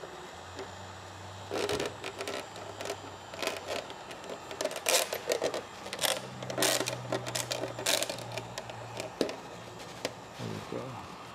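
Irregular clicks, knocks and rattles of paintless dent repair tools and their stand being handled and positioned, over a low steady hum that shifts pitch about halfway through.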